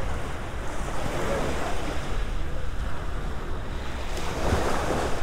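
Small waves lapping and washing up onto the sand, with wind buffeting the microphone. A fuller wave washes in a little after four seconds in.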